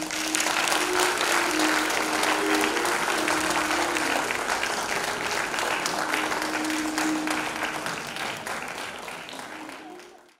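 Theatre audience applauding, with sustained background music under it. The clapping breaks out at once, thins out slowly, and the sound cuts off abruptly at the end.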